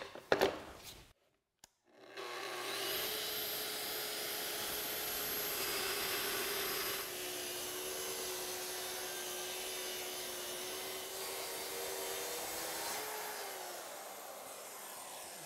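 Festool track saw ripping plywood along its guide rail, running together with its connected dust extractor. After a few clicks, the saw and extractor start about two seconds in and run steadily; the pitch drops a little around seven seconds in, and near the end the pitch falls and the sound fades as the saw winds down.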